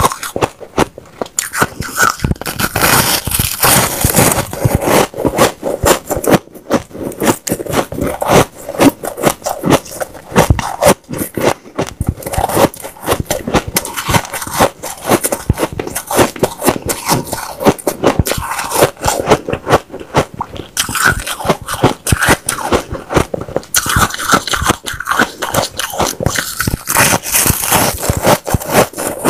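Close-miked crunching of powdery white ice being bitten and chewed: a dense, continuous run of small crisp crunches and crackles.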